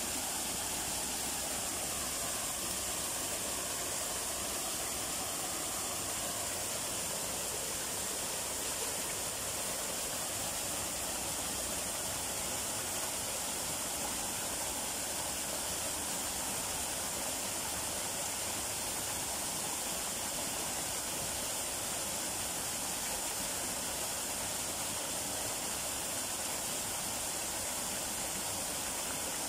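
Small garden waterfall: thin streams of water splashing steadily into a shallow rock pool.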